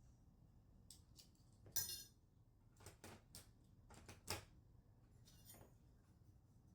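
Parts of a Lansky guided knife-sharpening kit being handled: a scatter of light clicks and clinks of hard plastic and metal knocking together, about a dozen in all, the loudest about two seconds in.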